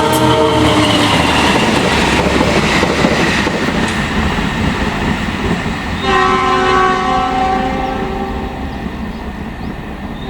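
Train passing: a locomotive's multi-tone air horn, the semboyan 35 signal, drops in pitch and ends about a second in. The rumble and clatter of the passing train follow, and about six seconds in another long horn blast starts and fades toward the end.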